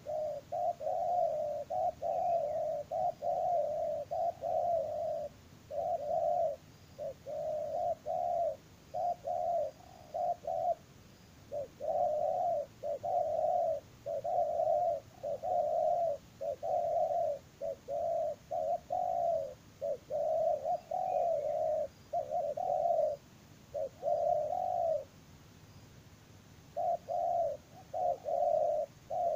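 Spotted dove calls: short, mid-pitched coos repeated almost without a break, in quick runs with a few short pauses. The calls stand in for a live decoy bird, used to lure wild doves.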